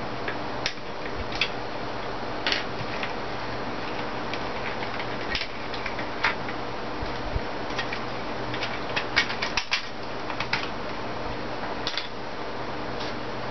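Scattered light clicks and taps of plastic parts and a small screwdriver as a Nerf Longstrike blaster is taken apart. A small flurry of clicks comes about two-thirds of the way through, over a steady hiss.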